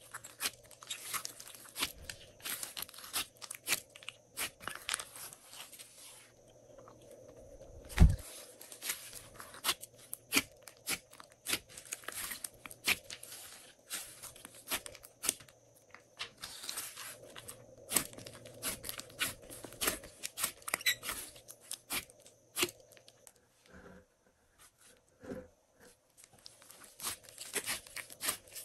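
Thick glossy slime being stretched, pressed and folded by hand, giving dense, irregular sticky crackles and clicks as it pulls apart and folds, with one louder thump about eight seconds in.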